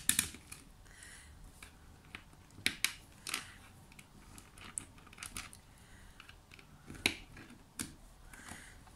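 Plastic pegs clicking as they are fitted into the holes of a Happy Jig plastic pegboard, with fingers and nails tapping on the board. The clicks are scattered and irregular, a second or so apart, the sharpest about three and seven seconds in.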